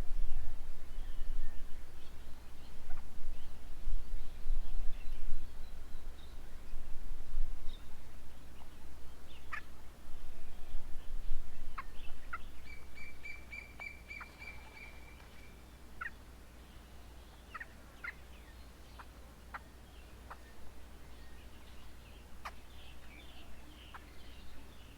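Wild birds calling around a garden bird table: scattered short chirps and one held, even whistled note of about three seconds midway. A low rumble underlies the first half and then fades away.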